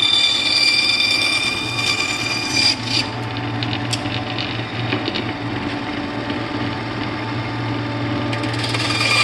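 Bandsaw running with a steady motor hum while its blade cuts a wooden letter. The higher cutting whine stops about three seconds in, leaving the motor running, and picks up again near the end.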